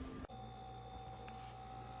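Mini beverage fridge running with a steady electrical hum of a few fixed tones, its compressor and fan on; the sound changes abruptly about a quarter second in and then holds steady.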